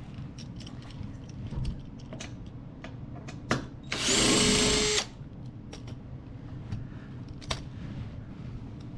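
Power drill spinning at a steady pitch for about a second, backing out a bumper bolt, with a few sharp clicks of the tool and bolt being handled before and after.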